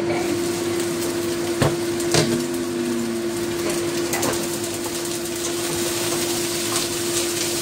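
A glass wok lid being lifted off and set down, with a sharp clink or two early on, then a wooden spatula scraping and knocking in a metal wok as meat pieces are stirred. A steady hum runs underneath.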